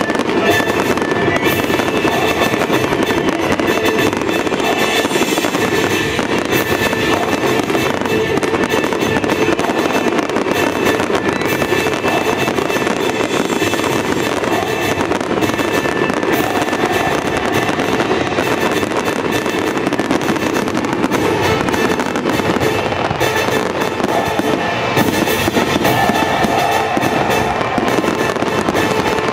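Aerial fireworks shells bursting and crackling in quick succession, with music playing throughout.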